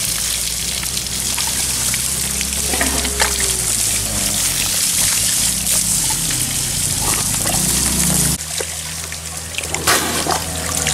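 Water from a garden hose splashing over a young elephant, a steady hiss that drops in level about eight seconds in.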